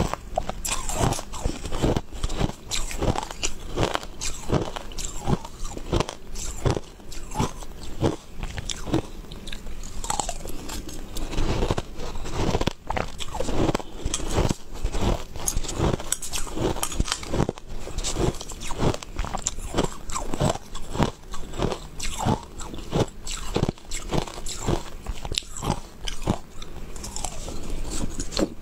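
Close-up crunching and chewing of crushed ice in the mouth, a dense run of crisp crackles, several a second and unbroken.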